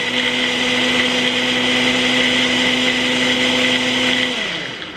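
Ninja Professional Plus blender running its Auto-IQ ice-crush program on a protein shake with ice: a steady, loud motor whir that slows down and winds to a stop about four seconds in.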